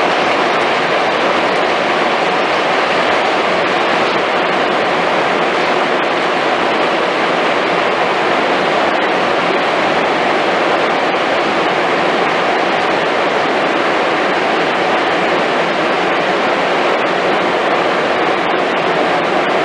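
Rubber-tyred Montreal Metro train running at speed through a tunnel, heard from inside the car: a loud, steady rushing noise.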